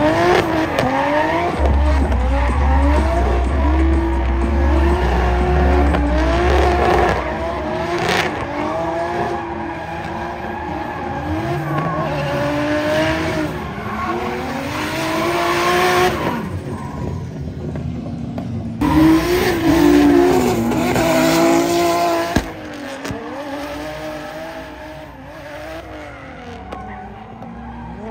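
Drift cars' engines being revved hard, the engine note rising and falling again and again as the cars slide, with tyre squeal.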